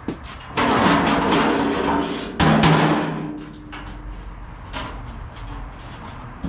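Large stamped-steel car floor pan flexing and clattering as it swings on an engine hoist's chain. There are two loud stretches of rattling, ringing sheet metal in the first three seconds, then a few quieter knocks.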